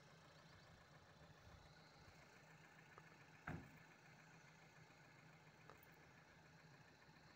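Faint, steady low hum of an idling truck engine at a distance, with a single soft knock about three and a half seconds in.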